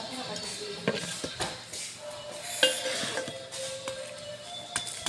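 Cutlery clinking against dishes in a few separate sharp clicks, with music playing underneath.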